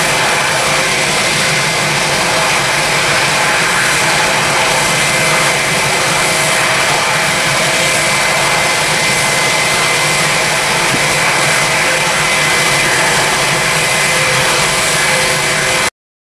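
Jet airliner engines running steadily: an even rush of engine noise with a thin high whine through it. It cuts off suddenly just before the end.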